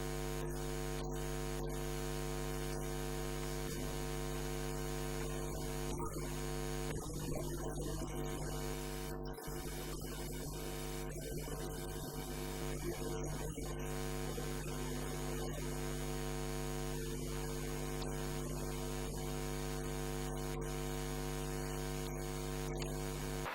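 Steady electrical mains hum: a constant low buzz made of a stack of evenly spaced overtones that holds unchanged throughout.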